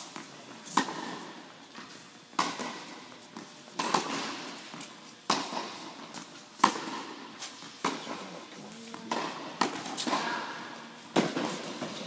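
Tennis balls struck by rackets during a rally in an indoor tennis hall: about eight sharp pops, roughly one every one and a half seconds, each echoing off the hall.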